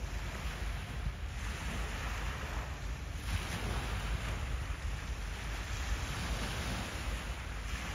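Harbour waves washing in, a hiss that swells and eases in several surges, over a steady low rumble.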